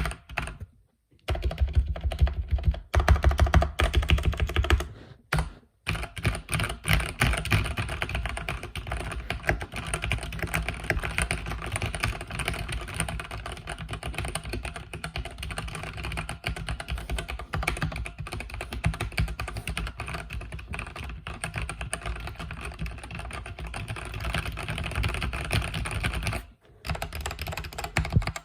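Mechanical keyboard with red linear switches being typed on fast and continuously, a dense run of key clicks and bottom-outs. The typing stops briefly about a second in, again around five seconds in, and once more near the end.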